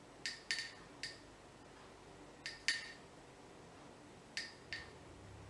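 Faint light clinks of a metal crochet hook as chain stitches are worked: seven short clicks, mostly in close pairs, a second or two apart.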